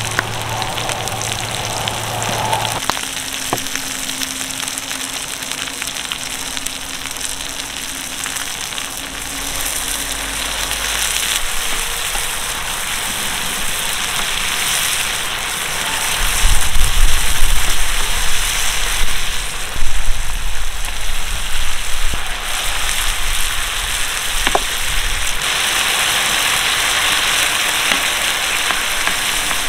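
Sausage, onion and sauce sizzling and frying in a round griddle pan over a charcoal fire, stirred now and then with a wooden spoon. A run of heavy low thumps breaks in through the middle.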